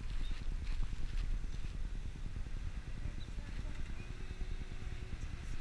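A car driving slowly, heard from a camera mounted outside by the side mirror: a steady low rumble of road noise and wind buffeting the microphone.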